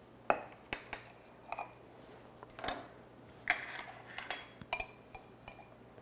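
Knife and cake server clinking and knocking against the cake stand and countertop as a slice of cake is cut and lifted out: a string of about a dozen sharp clicks and knocks, the first the loudest.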